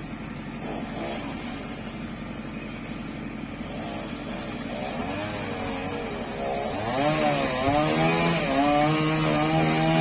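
A backhoe's diesel engine running steadily. About five seconds in a chainsaw starts up, its pitch swooping up and down as it is revved, then holds at high revs and gets louder near the end.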